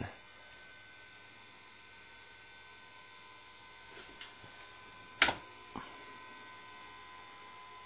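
A switch clicks once sharply about five seconds in, with a softer click just after, over a faint steady electrical hum.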